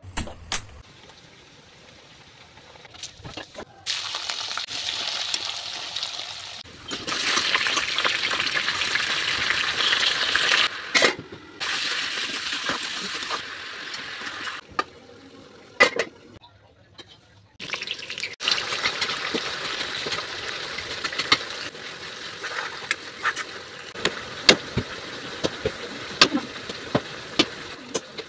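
Kitchen cooking sounds: a hiss that comes and goes in stretches of several seconds, with sharp clinks of a utensil against a metal pot.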